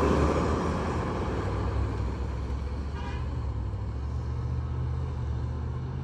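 Fire engine's diesel engine running as the truck pulls away, its low drone slowly fading, with a brief faint horn-like tone about three seconds in.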